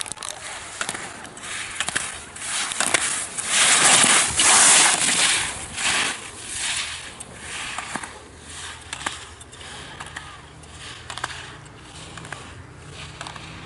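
Slalom skis carving quick turns on firm snow, the edges scraping in a surge of hiss with each turn, loudest about four seconds in. Sharp clacks of slalom gate poles being struck come through the run.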